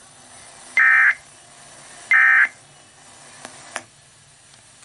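Emergency Alert System end-of-message (NNNN) data bursts: two short, loud, identical screeching digital tone bursts about a second and a half apart, signalling the end of the alert. A few faint clicks follow near the end.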